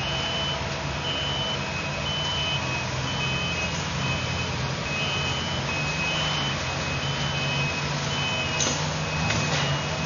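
Construction-machine backup alarms beeping repeatedly, two alarms at slightly different pitches, over a steady diesel engine running. A couple of brief knocks near the end.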